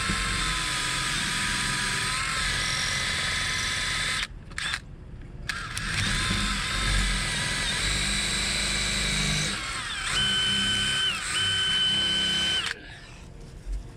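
Power drill boring into a metal trailer lock, its motor whining steadily. It stops about four seconds in, gives a short blip, then starts again and runs until near the end. Near the end its whine jumps to a higher pitch, with one short break.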